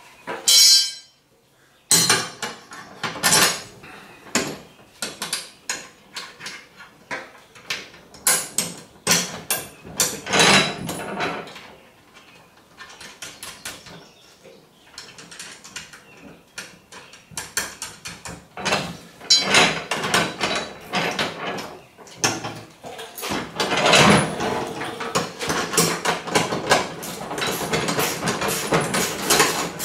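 Metal sprayer parts and bolts clinking and clanking as brackets are fitted and bolted on, with scattered sharp knocks. From about 23 seconds in, a denser run of rapid metallic clicking while the hardware is tightened.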